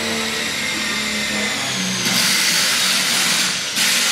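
A power tool driving a titanium Shockwave Red Helix bit into metal. The motor runs under load with its pitch sagging, and about halfway through a loud, harsh grinding noise sets in as the bit cuts. The noise breaks off briefly near the end and then resumes.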